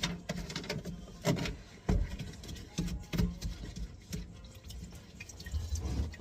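Water dripping and trickling from disconnected sink drain pipes, with irregular clicks and knocks of the pipe parts being handled.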